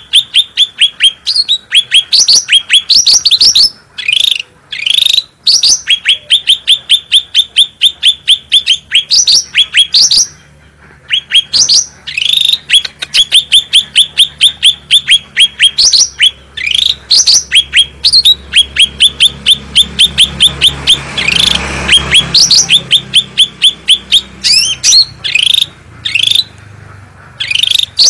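Cucak rante songbird singing: long runs of sharp, rapidly repeated chattering notes, about six a second, broken by brief pauses. This is its loud 'gacor' song, the kind played as a masteran to teach or provoke other songbirds.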